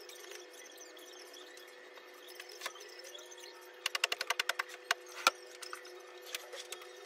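A bed being made: pillows and bedding handled, with a quick run of about ten light clicks around the middle and one sharper tap a moment later, over a faint steady hum.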